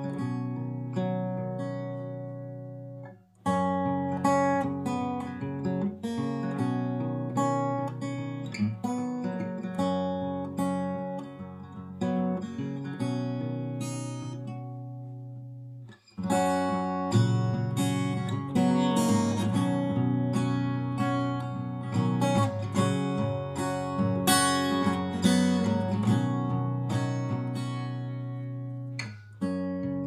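Acoustic guitar music, a string of plucked and strummed notes, with two brief pauses, one a few seconds in and one about halfway.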